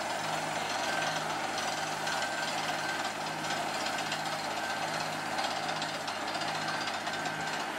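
Air-rotary drill rig with its hammering stopped and compressed air rushing steadily out through the bit: the sign that the drill has broken through into a cave void. Under the steady hiss, a low throb pulses about once a second.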